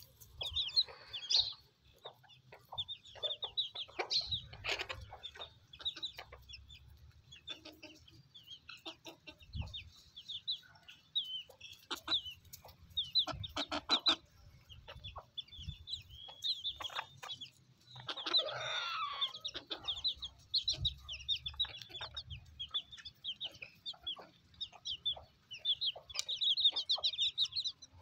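Chickens clucking and young chicks peeping while they feed: a steady run of short, high peeps over scattered lower clucks, with one longer, louder call about two-thirds of the way through.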